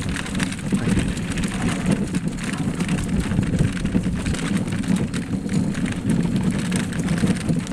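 Alpine coaster bob running down its metal rail track: a steady low rumble from the wheels, with frequent rattling clicks.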